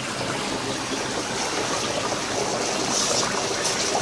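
Tap water running onto dry ice in a washbasin: a steady rush of water with the dry ice bubbling as it gives off thick fog, a little brighter and hissier about three seconds in.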